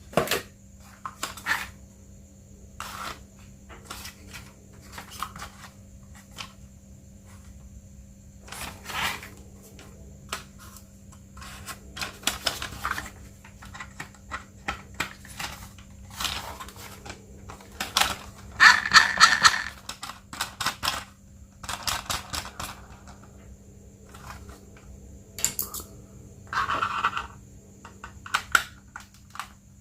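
Unboxing handling noises: scattered clicks, taps and short rustles of packaging and plastic parts, loudest in a rustle a little past the middle, over a faint steady hum.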